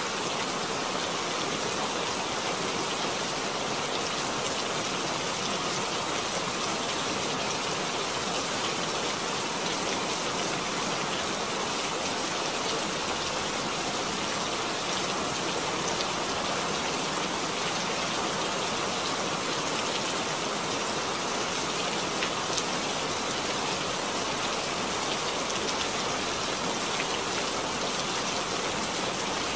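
Steady rain falling, with individual drops splashing on a wet surface.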